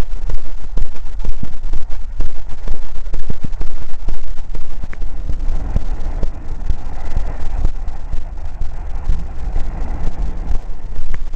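Moscow tram rolling past close by: a low rumble with irregular knocks and clatter from the wheels on the rails.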